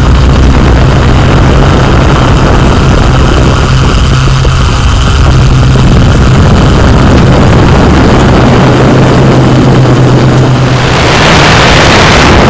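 Yuneec Typhoon Q500+ quadcopter's motors and propellers running with a loud, steady hum in flight. A rushing hiss swells up near the end.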